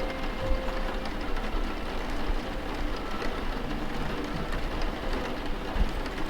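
Steady rain: an even hiss of rainfall over a low rumble, with a few soft low knocks.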